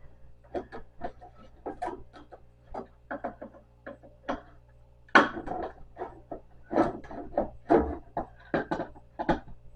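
Irregular clicks, taps and knocks of wooden furniture parts and hardware being handled as a printer stand is taken apart, the louder knocks coming in the second half.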